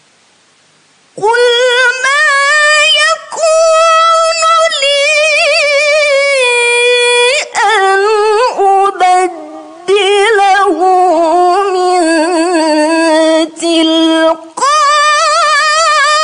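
A young woman's melodic Quran recitation (tilawah): long, high held notes with wavering ornaments, broken by a few short pauses for breath. It begins about a second in after a faint hiss.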